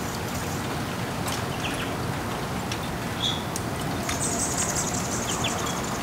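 Water trickling and splashing steadily down a tiered hanging glass water feature, with small birds giving a few short, high chirps and a brief high twitter about four seconds in.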